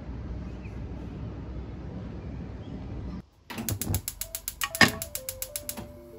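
Steady outdoor city ambience with wind on the microphone, then, after a short gap, a gas stove's igniter ticking rapidly, about seven clicks a second for roughly two seconds, with one louder click in the middle as the burner lights. Soft music notes come in under the ticking.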